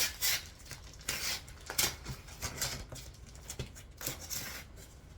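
Packaging being handled and unwrapped: an irregular run of rustles and crinkles, with a few short clicks, as a graded comic is taken out for the reveal.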